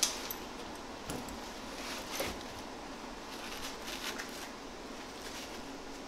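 A few light clicks and taps while a side curtain airbag is handled and pressed into its mounts along a pickup truck's roof rail, over a steady background hiss.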